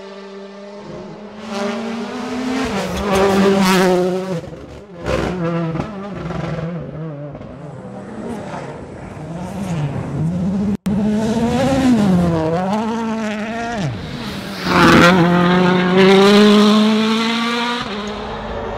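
Rally car engines at full throttle, the revs climbing and dropping again and again through gear changes and braking as the cars pass. The sound breaks off for an instant a little past halfway, and there is a loud rush of engine and tyre noise around three quarters of the way in.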